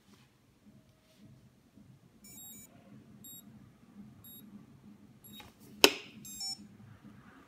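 Short high electronic beeps: a quick chirping run about two seconds in, single beeps about a second apart after it, and another quick run near the end. A sharp click, the loudest sound, comes just before the last run, as the small plastic dongle is set down on the wooden table.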